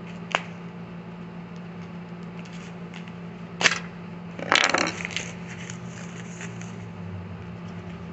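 Thin white foam packing wrap crinkling and rustling as it is handled and unwrapped: a sharp click just after the start, a brief crackle a little before four seconds in, then a louder burst of rustling about a second later. A steady low hum runs underneath.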